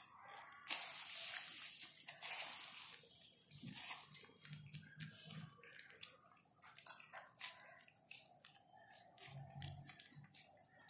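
Puppies suckling at their mother's teats: many quick wet smacking and chewing clicks. About a second in comes a loud rush of hissing noise lasting about two seconds.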